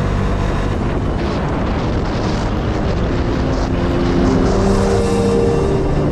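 Vespa S 125 scooter ridden at road speed: wind buffeting the microphone with the engine running underneath. From about halfway in, held music notes come in over it.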